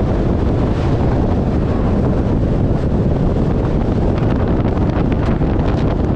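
Heavy wind buffeting the microphone on a moving motorcycle, with scattered sharp ticks from about four seconds in, typical of hail striking the camera or helmet.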